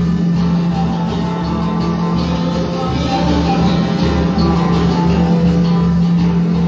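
Live band playing an instrumental passage: electric and bass guitars over a drum kit keeping a steady beat, under a long held low note.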